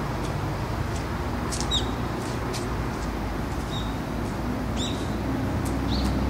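Steady low outdoor hum of distant traffic, with a few short high chirps or squeaks scattered through it.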